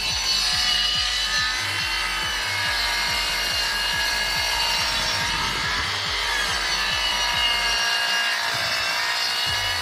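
Power saw cutting through wooden boards: a steady whine and rasp that drifts up and down a little as the blade takes the wood.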